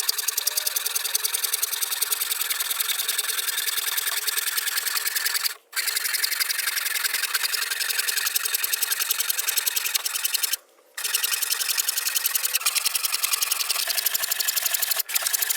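Handsaw cutting through a pallet board and the plywood backer clamped beneath it, in quick, even strokes, broken twice by brief silent gaps.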